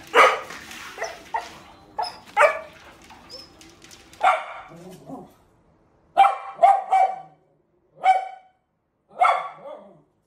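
A dog barking: short single barks a second or two apart, with a quick run of three about six seconds in.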